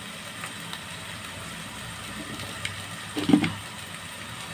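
Shrimp paste (alamang) with tomatoes frying in a stainless steel pan, sizzling gently as a steady hiss. One brief louder sound about three seconds in.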